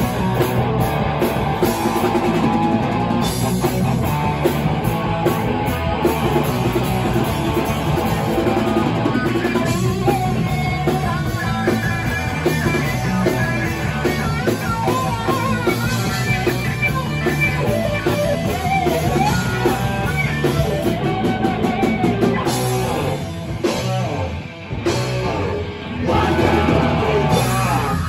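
Live punk rock band playing loud, with distorted electric guitars and a drum kit driving the song. A few short breaks come near the end.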